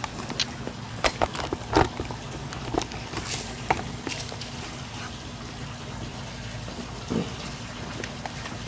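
A few sharp clicks and knocks from a cold chainsaw being handled and readied for a pull-start, with a faint low steady hum behind. The saw is not running.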